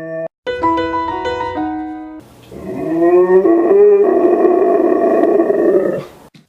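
A dog's howl ends, a few piano notes play, and then a dog howls along, rising in pitch before holding a loud, wavering note for about two seconds and stopping suddenly.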